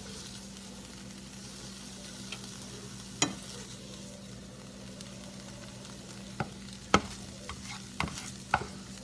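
A spatula scraping and knocking against a nonstick frying pan as scrambled eggs are scooped out, with one sharp click about three seconds in and a quick run of clicks in the last three seconds. A steady low hum runs underneath.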